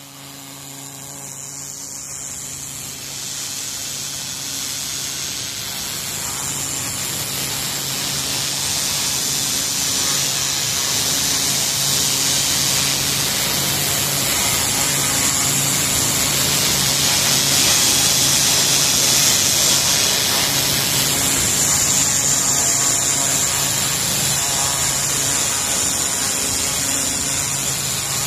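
Pressure washer jet blasting cold water onto block paving: a steady loud hiss of the spray hitting the pavers over a steady low hum of the machine running, growing louder over the first several seconds.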